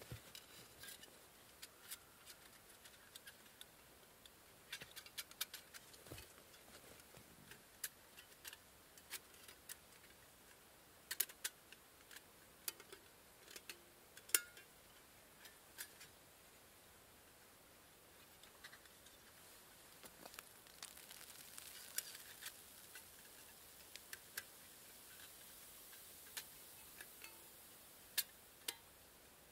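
Small perforated metal panels of a folding pocket stove clicking and ticking as it is unfolded and fitted together by hand: irregular light metallic clicks, a few sharper ones among them.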